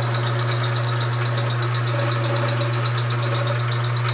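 Vertical milling machine running, its cutter milling an aluminium block under power feed: a steady motor hum with a fast, even pulsing from the cut.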